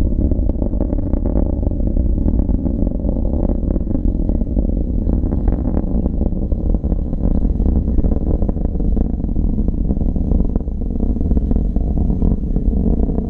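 Distant rumble of an Atlas V rocket's RD-180 first-stage engine climbing away: a loud, steady deep rumble with a ragged crackle.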